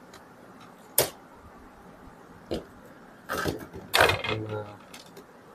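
Laptop parts being handled during reassembly: a sharp click about a second in, a small tick, then rustling and scraping as a part is set into the open chassis.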